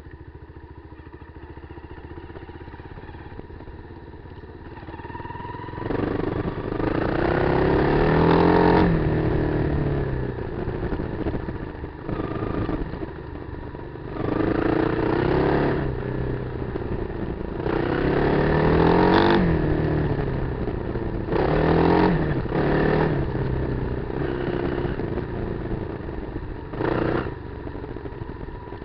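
Kawasaki KLR250's single-cylinder four-stroke engine running low for about five seconds, then revving up and back down in several bursts, the last a short one near the end.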